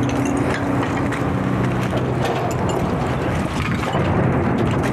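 Wind rumbling on a body-worn microphone while walking, with footsteps and gear clicking through it. A steady low hum fades out about two seconds in.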